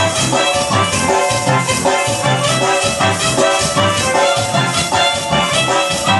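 Dance music played loud over a DJ sound system, with a steady beat and bass.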